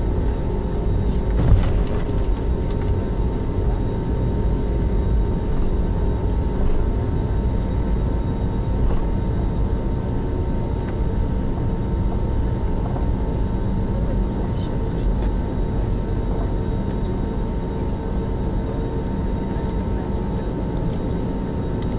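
Cabin noise of an Airbus A320neo taxiing, heard from a seat over the wing: its CFM LEAP-1A engines at idle give a steady low rumble with a faint steady hum. A single short knock comes about a second and a half in.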